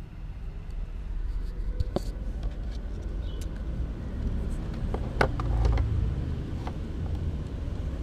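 Close handling noises, scattered clicks, taps and rustles as hands work a small fan's wires, over a steady low rumble. The loudest knocks come about two seconds in and again around five to six seconds.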